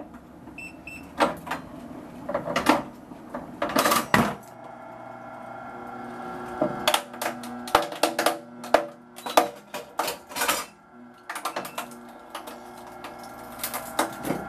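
PPD-2G hard drive destroyer with autoloader running a destroy cycle: a series of sharp mechanical clanks and knocks as the drive is fed in and destroyed, with a motor hum from about four seconds in until near eleven seconds.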